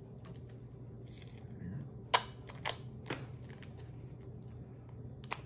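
Handling and unwrapping a plastic-wrapped epoxy putty stick: faint crinkling, then a few sharp plastic clicks in the middle and one near the end, over a low steady hum.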